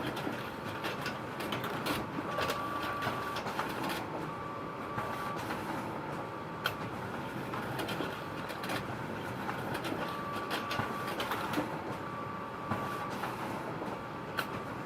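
Photocopier running: a steady mechanical whir with sharp clicks scattered through it and a short whining tone about a second long that comes back every few seconds.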